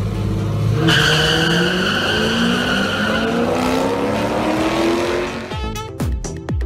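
Two cars launching side by side in a drag race, their engines revving hard off the line and climbing steadily in pitch for about four seconds. Near the end the sound breaks into a few sharp hits.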